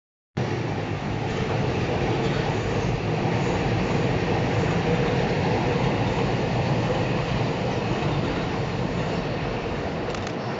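Freight train of container flatcars running past at high speed: a steady, loud rolling noise of steel wheels on rail.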